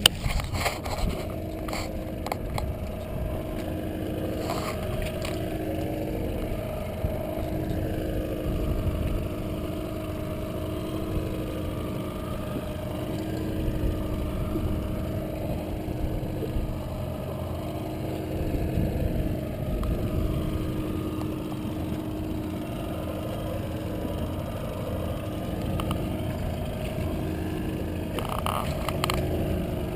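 Mercury outboard motor running steadily at trolling speed, a droning hum that wavers slightly in pitch. A few short knocks come about a second before the end.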